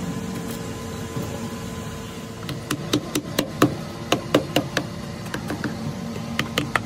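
Small hammer tapping a plastic cell cover down over the lead terminal posts of a lead-acid battery. A run of quick, sharp knocks starts about two and a half seconds in, and a few more come near the end.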